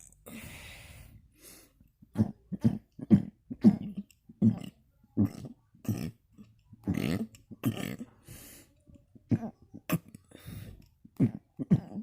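A person burping with the mouth closed, a quick string of short burps about two a second, starting about two seconds in.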